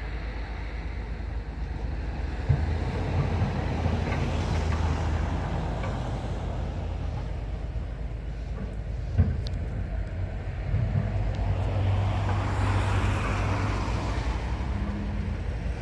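Road traffic passing steadily, with one vehicle swelling louder as it goes by near the end.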